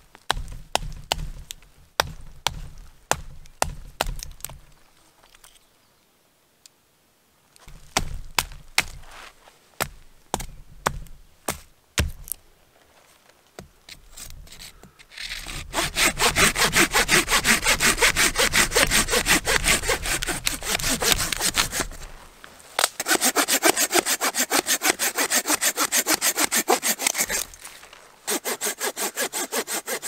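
A hand saw cutting through dry deadwood in fast back-and-forth strokes, in three bouts in the second half. Before that comes a string of sharp wooden snaps and knocks as the dry wood is worked by hand.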